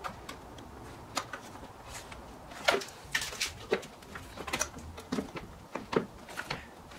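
Hard plastic knocks and clicks, irregular, as the engine air box housing and intake ducting are handled and pressed back into place.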